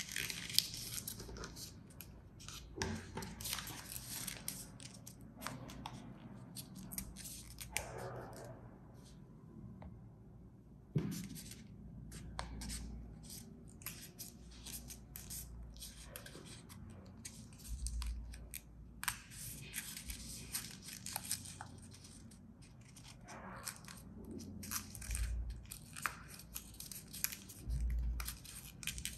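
A folded dollar bill crinkling and rustling as fingers crease and pinch it, with irregular small crackles and ticks, and a few dull bumps near the end.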